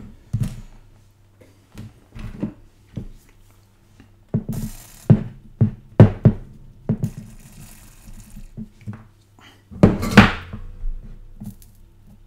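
Hand tools knocking and scraping at an electronics workbench during circuit-board rework: irregular knocks and taps, two short stretches of scraping, and a louder knock about ten seconds in, over a steady low hum.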